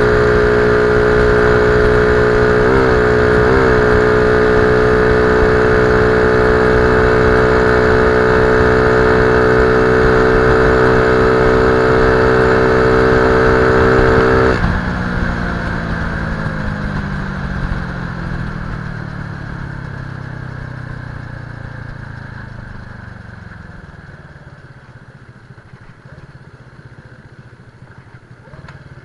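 Single-cylinder four-stroke engine of a 122cc Honda C70 Cub running steadily at high revs under way, with two brief wobbles in pitch about three seconds in. About halfway through the engine note cuts off suddenly and the bike coasts, its remaining sound sliding down in pitch and fading as it slows.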